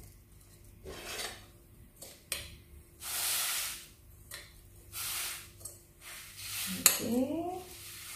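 Sifted sugar and flour being poured from a mixing bowl into a plastic bag in a few rushing pours, with sharp clinks of the bowl and utensils, the loudest near the end.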